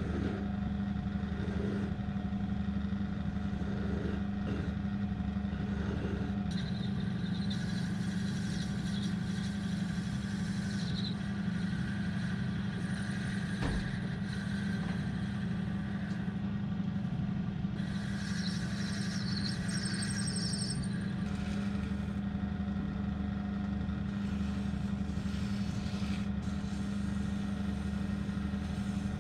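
Small benchtop metal lathe running with a steady motor hum as it spins a cast metal pawn in its chuck. Twice, for a few seconds at a time, a higher scraping sound from the tool working the spinning workpiece rides over the hum: about seven seconds in and again about eighteen seconds in.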